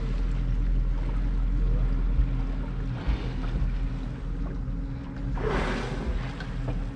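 Small open boat's outboard motor idling, a steady low hum, with light wind and water noise. A little over five seconds in comes a brief breathy rushing whoosh.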